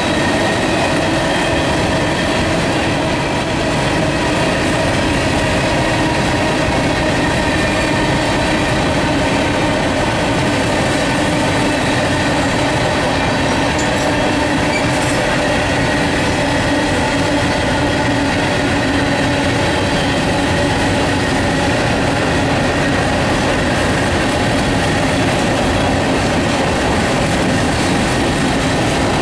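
Freight train cars, covered hoppers and tank cars, rolling past at a steady speed: loud, even wheel-on-rail noise with a few faint steady whining tones over it.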